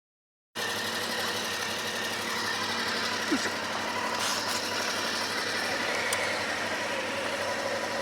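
Motorcycle engine running steadily at an even speed, cutting in suddenly about half a second in.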